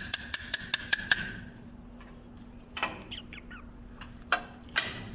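A quick, even run of sharp metallic clicks, about six a second, with a ringing tone, stopping about a second in; then a few scattered knocks.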